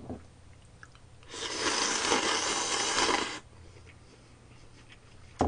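A person slurping buckwheat soba noodles, one loud slurp of about two seconds starting just over a second in.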